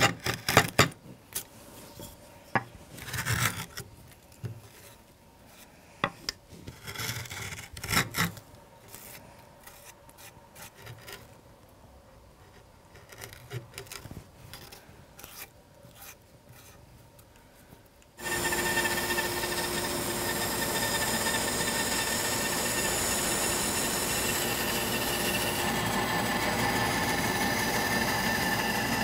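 Irregular scraping strokes of hand tools carving out the bowl of a walnut spoon blank. About 18 s in, a bandsaw comes in abruptly and runs steadily, cutting through a walnut blank.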